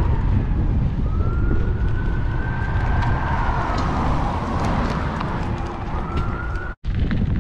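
Wind rushing over a bicycle-mounted camera's microphone while riding, with a long background tone that slowly rises and falls in pitch and starts rising again later. The sound drops out for an instant near the end.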